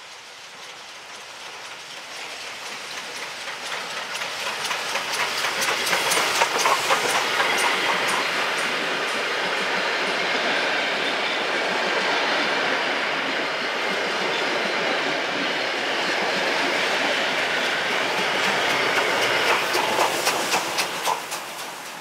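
Victorian Railways D3 class steam locomotive and its wooden carriages passing on the line, growing louder as the train approaches. The wheels click rapidly over the rail joints as the carriages roll by, then the sound fades away near the end.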